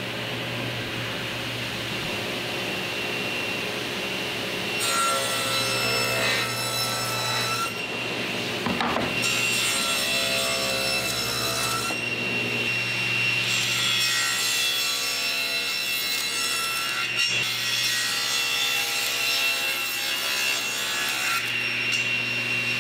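SawStop table saw running with its steady blade whine and hum, cutting into plywood stood on edge against the fence. The board is fed through in several passes, each a few seconds long and starting about five seconds in, with a rasping cut as the blade bites into the plywood face.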